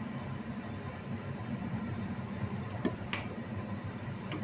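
Steady low mechanical hum at the stove, with a couple of light knocks and one sharp click about three seconds in as a spice shaker is handled.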